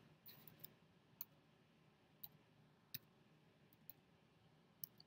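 Near silence with a few faint, scattered clicks and taps of hands handling a cardboard box and a card.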